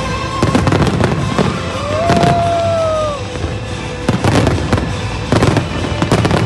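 Aerial fireworks bursting in quick succession: repeated sharp bangs with crackling between them, heaviest around two seconds and again four to five and a half seconds in.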